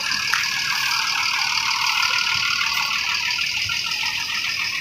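Mercedes-Benz OH 1626 coach driving slowly past and pulling away, its engine and tyres giving a steady, even noise.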